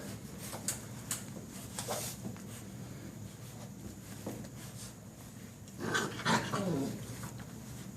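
Six-week-old hound mix puppies playing: scattered small knocks and scuffs, then about six seconds in a puppy gives a brief pitched cry.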